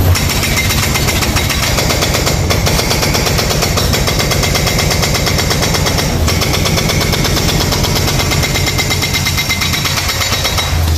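Hydraulic breaker on a Yanmar mini excavator hammering into a concrete balcony slab, a rapid, continuous stream of blows.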